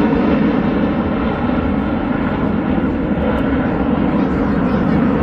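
Jet engines of an aerobatic formation flying overhead: a loud, steady rushing rumble.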